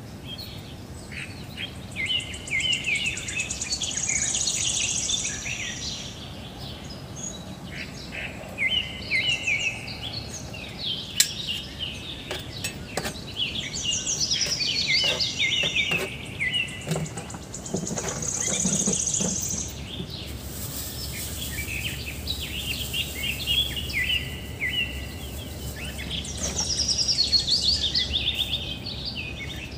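A songbird singing short chirping phrases over and over, a new burst every few seconds, with a high, steady insect buzz coming and going behind it. A sharp knock about eleven seconds in.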